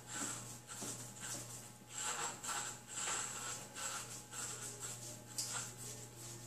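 Corded electric hair clippers running with a steady hum, their blades buzzing through hair in uneven strokes as a head is shaved.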